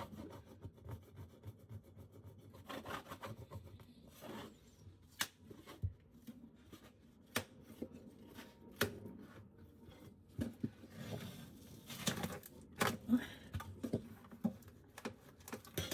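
Hand scraper working at old camper flooring: scattered scrapes, rubs and sharp taps, with short pauses between strokes.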